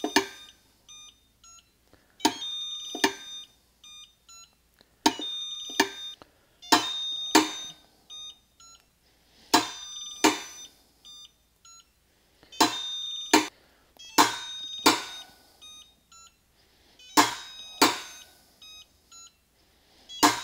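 Tekton click-type torque wrench being pulled on a CDI digital torque tester: a sharp click as it breaks over at its set torque, repeated about every two to three seconds, each joined by electronic beeping from the tester, with short faint beeps in between.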